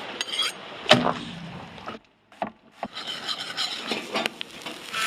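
Wooden knocking and scraping: a sharp knock about a second in, then, after a brief break, a stretch of rough rubbing and scraping with a few lighter knocks.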